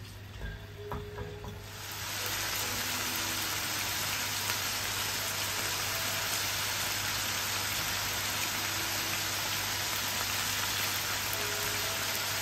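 Chicken pieces sizzling in oil in a frying pan, with a few light knocks near the start; about two seconds in the sizzle grows much louder and then holds steady.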